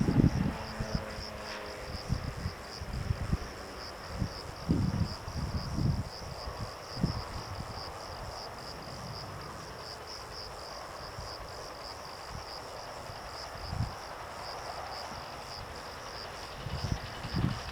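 Insects chirping steadily in a high, rapidly pulsing buzz, with gusts of wind rumbling on the microphone now and then, strongest in the first few seconds and near the end.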